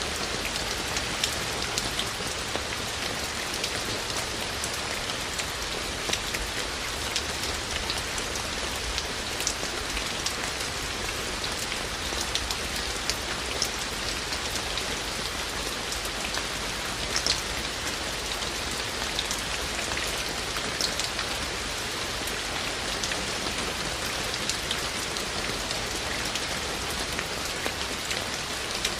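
Steady rain falling, an even hiss with many distinct drops ticking sharply against nearby surfaces.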